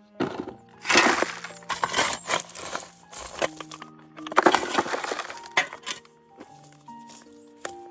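Loose stones and rubble crashing and clattering as they are dumped onto a pile, in two loud spells about a second in and about four and a half seconds in, with scattered knocks between, over background music.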